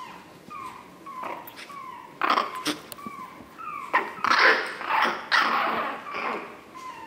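Chihuahua puppies in play: a series of short, high, falling squeaks, then from about two seconds in a run of louder, rougher yaps and growls lasting a few seconds.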